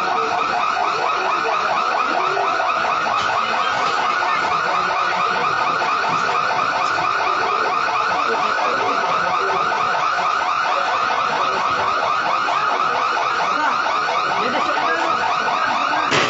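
Shop burglar alarm going off: a loud electronic tone repeating rapidly and evenly without a break.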